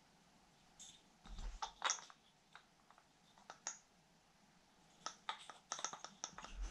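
Quiet, scattered clicks and taps of wooden kendamas being handled, with a quick run of clicks near the end.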